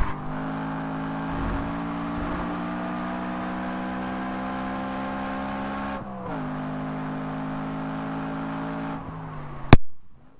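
BMW E90 M3's V8 engine pulling hard, heard inside the cabin, its pitch climbing slowly, with a gear change about six seconds in. Near the end a loud click and the sound cuts out as the failing microphone drops out.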